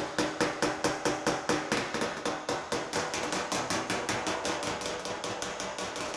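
Rapid, evenly paced hammer blows, about seven or eight a second, from a pick hammer striking the back of a sheet-metal car fender against a dolly held on the front; each blow makes the panel ring briefly. This is hammer-on-dolly straightening to bring a high front edge and low spots back into line.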